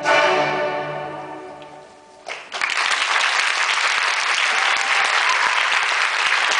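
Music ends on a final chord that dies away over about two seconds, then audience applause breaks out and carries on steadily.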